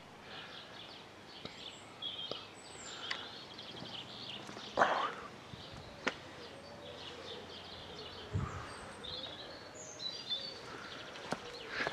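Small birds chirping and singing, with scattered sharp clicks and one louder brief sound about five seconds in.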